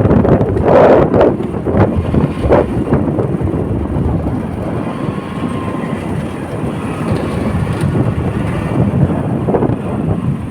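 Wind buffeting the microphone: a loud, rumbling noise with strong gusts in the first few seconds, then steadier.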